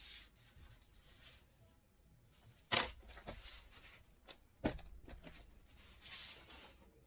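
Two sharp knocks about two seconds apart, with a few small clicks and a soft rustle near the end: handling noise of painting tools and a tissue on a table beside a watercolour paint box.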